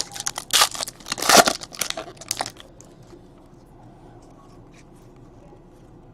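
Trading card pack wrapper being torn open and crinkled, a dense burst of crackling for about two and a half seconds that then stops.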